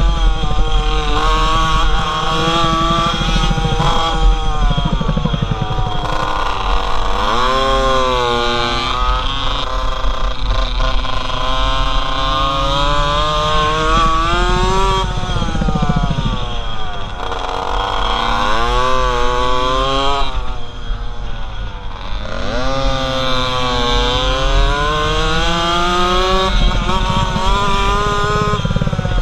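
Small two-stroke minimoto engine revving hard, its pitch climbing as it accelerates and dropping sharply several times as the rider backs off for corners, then rising again. Low wind rumble on the helmet microphone runs underneath.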